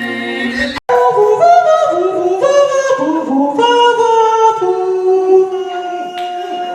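A cappella vocal group holding a chord that cuts off abruptly about a second in, then a high lead voice singing wordless runs over sustained backing harmonies.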